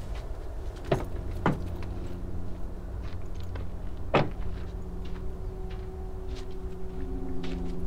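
Car door and bag being handled: three sharp clunks, about one, one and a half and four seconds in, over a steady low hum.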